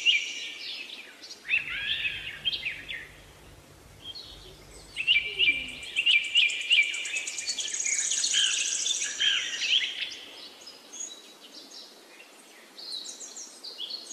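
Small songbirds singing: quick chirps and high trills in clusters, busiest at the start and again from about five to ten seconds in, then sparser.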